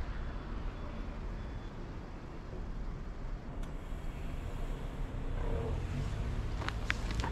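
Road traffic at a snowy street intersection: a steady rumble that grows louder toward the end, with a few short high squeaks near the end.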